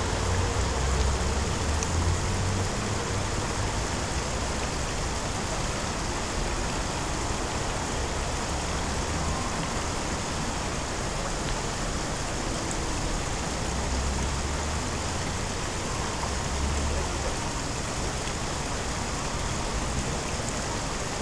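Steady outdoor rushing noise, even and unbroken, with a low rumble that swells briefly near the start and again about two-thirds of the way through.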